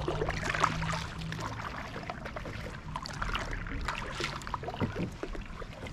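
Kayak on the water: irregular splashing and dripping with small clicks, as a paddle works the water beside the hull.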